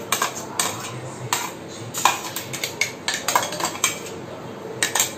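Spoon clinking and knocking against a bowl in a quick, irregular run of sharp clicks while ginger-garlic-onion paste is scooped into mutton being marinated.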